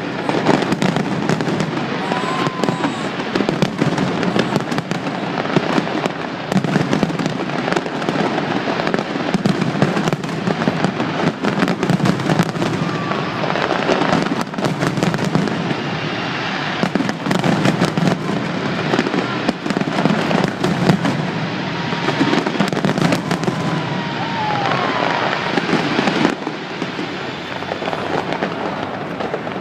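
Fireworks display: a dense, continuous barrage of bangs and crackles with no let-up, with a few faint whistles through it.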